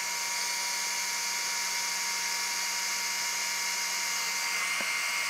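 Cordless drill running steadily, its twist bit boring a hole through a UHMW polyethylene plow cutting edge; an even motor whine.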